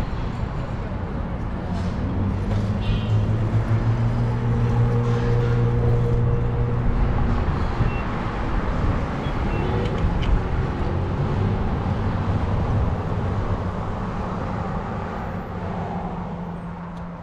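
Road traffic with a heavy vehicle's engine hum, loudest a few seconds in and easing off toward the end.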